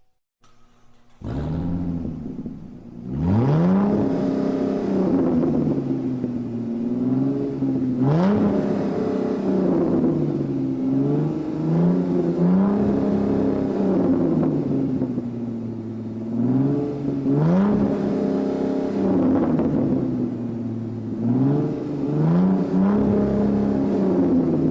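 Car engine revving several times over; each rev climbs in pitch, holds, then drops back.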